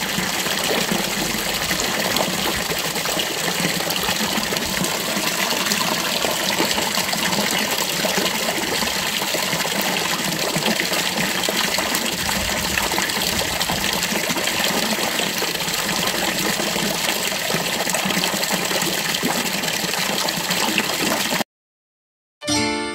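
Water from a stone fountain falling into its basin, a steady even splashing. It cuts off abruptly about 21 seconds in, and after a second of silence plucked keyboard music starts.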